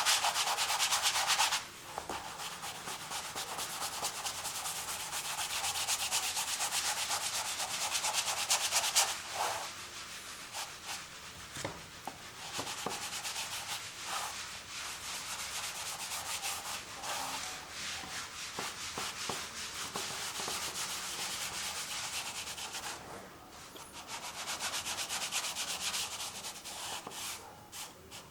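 Acrylic paint being worked over a canvas in continuous rubbing, scraping strokes, a dry rasp. It is louder for the first couple of seconds, again through the middle stretch and near the end, and softer in between.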